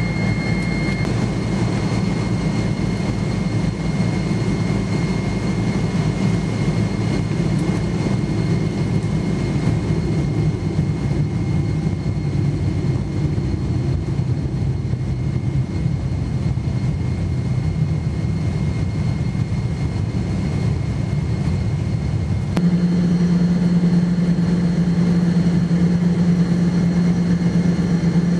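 Boeing 777-300ER's GE90 jet engines running at low power, heard as a steady rumble from inside the cabin. About 22 seconds in, the sound steps up to a louder, steadier hum.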